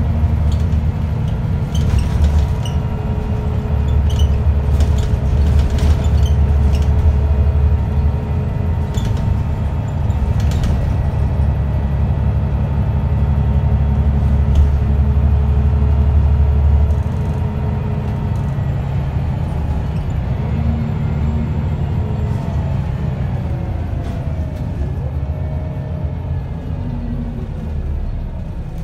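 Wright Solar–bodied Scania single-deck bus heard from inside the passenger saloon while under way: its diesel engine and drivetrain running with a steady low drone, a whine and road noise, and a few short rattles in the first ten seconds. About seventeen seconds in the drone drops and the whine bends in pitch as the bus eases off.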